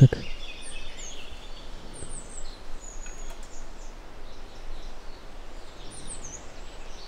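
A few short, high bird chirps over a steady hiss of outdoor background noise.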